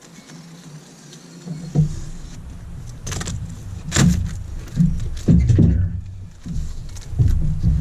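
A large cardboard shipping box being handled and opened: irregular thumps and scrapes of cardboard, with sharp rustling clicks.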